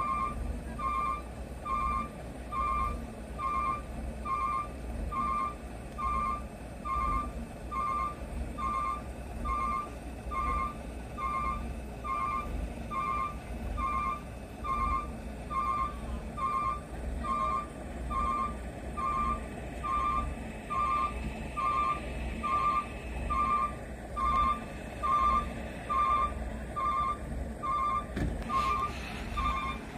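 Vehicle reversing alarm beeping steadily at about one beep a second, over the low rumble of a running engine.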